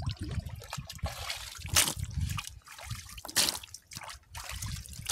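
Wet splashing and trickling of water among freshly caught fish, snakeheads among them, shifting in a little water in a plastic basin. It comes in irregular bursts, a few of them louder.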